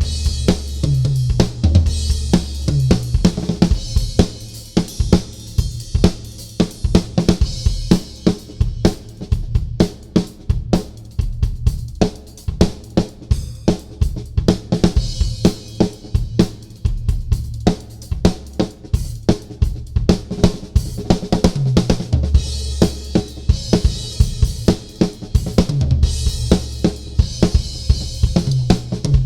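Drum solo on a Gretsch Renown Maple drum kit with Sabian cymbals: rapid strokes across snare, toms and bass drum. Crash and hi-hat cymbals ring heavily near the start and again over the last several seconds, with the middle stretch mostly drums.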